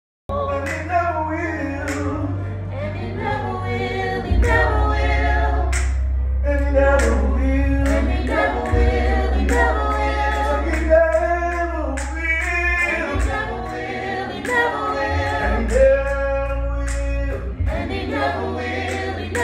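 Church praise team singing together in rehearsal, several voices in harmony over a steady low bass that changes note now and then.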